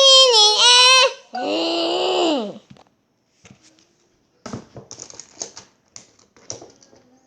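A child's voice imitating a dinosaur call: a high, wavering call, then a buzzy call that falls in pitch, ending under three seconds in. After it come only faint taps and rustles.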